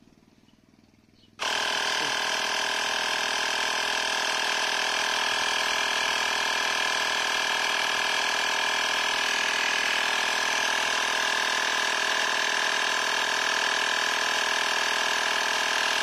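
Lydsto cordless handheld air pump's compressor starting about a second and a half in and then running steadily, a constant mechanical drone, as it pumps air into a car tyre.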